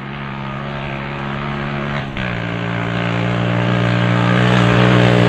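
Honda CG125's single-cylinder four-stroke engine approaching under acceleration, growing steadily louder, with a brief dip and a drop in pitch about two seconds in as it shifts up a gear.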